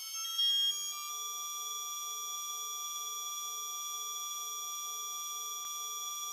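Synthesized electronic tone held steady with many overtones, a sound effect for an on-screen loading bar, with a short louder blip about half a second in.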